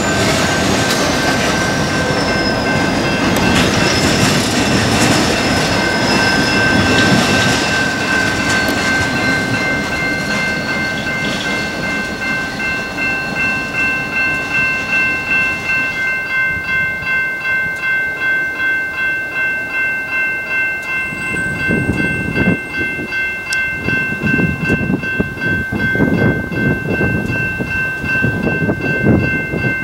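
Freight train rolling slowly through a grade crossing: a diesel locomotive and hopper cars rumble past, with a high wheel squeal in the first several seconds. The crossing signal's bell rings in steady, even strokes throughout, standing out plainly once the train noise fades from about twelve seconds in.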